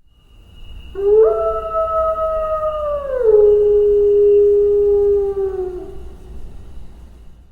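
A canine howling: one long howl that starts about a second in, holds one note, drops to a lower note about halfway through, then holds again and fades out.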